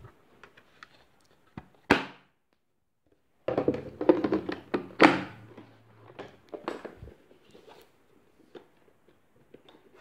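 Hard plastic clicks and knocks as an ILIFE A4 robot vacuum's dust bin and body are handled and set on a table: a sharp knock about two seconds in, then a dense run of clatter from about three and a half seconds, loudest about five seconds in, fading to a few small clicks.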